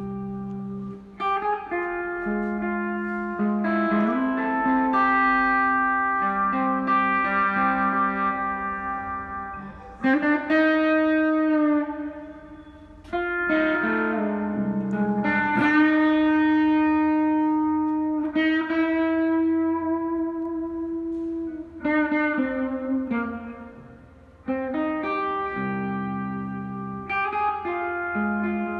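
Electric guitar played through effect pedals: a slow blues of ringing chords and single-note lines with string bends. It falls away briefly twice before the next phrase comes in.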